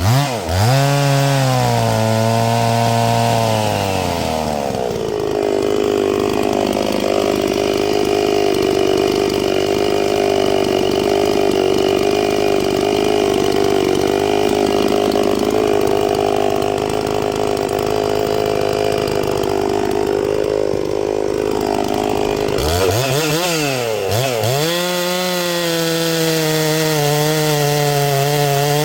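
Two-stroke chainsaw cutting black oak: it revs high, then runs lower and steadier under load for a long cut of close to twenty seconds. Near the end it swings up and down twice, then holds a high rev again.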